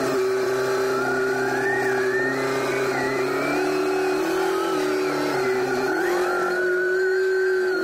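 SkyTrak telehandler's engine running steadily while it carries a load of steel beams, its pitch rising a little about halfway through and dropping back, with a high whine above it that wavers in pitch.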